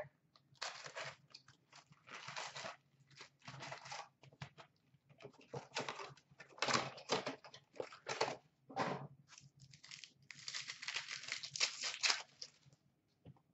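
Trading card box and card pack wrappers being handled and torn open: irregular crinkling, tearing and rustling, busiest about ten to twelve seconds in.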